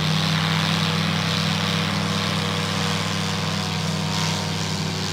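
Aircraft engine running at takeoff power during a takeoff: a steady drone with a strong low hum.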